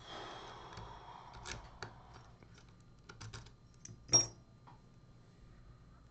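Small metal clicks and taps with some rustling, the sharpest click about four seconds in with a brief high ring: a lock cylinder and lockpicking tools being handled.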